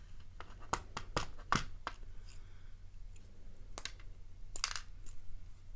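Challenge padlock being worked apart by hand: a quick series of sharp clicks in the first two seconds, then a couple more a few seconds later, with light scraping between, as a stiff part is forced through the lock.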